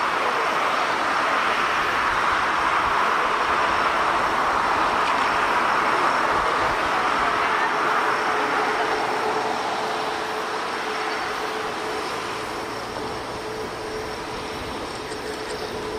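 Jet engine noise of a four-engine airliner going past, swelling and then fading over the second half, with a steady hum coming through near the end.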